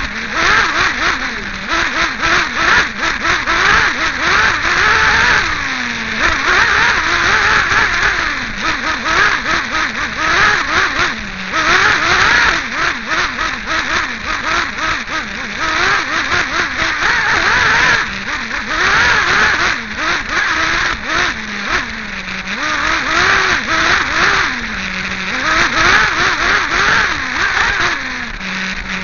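Small two-stroke nitro glow engine of a 1/8-scale RC8B off-road buggy, heard close up from on board. It revs up and down continually under throttle, and several times drops back to a low idle before revving again.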